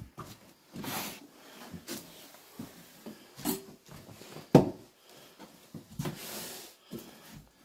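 Footsteps, scuffs and bumps on a debris-strewn floor, with one sharp thump about four and a half seconds in.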